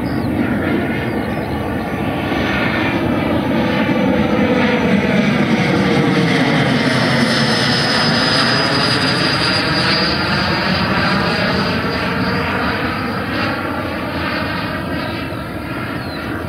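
Electric ducted fan of a Black Horse Viper RC jet (100 mm WeMoTec Midi Fan Evo driven by a HET Typhoon brushless motor) making a high-power fly-by. The rushing whine swells over the first few seconds, peaks around the middle, then eases off toward the end, its high fan tone dropping slightly in pitch as the jet passes.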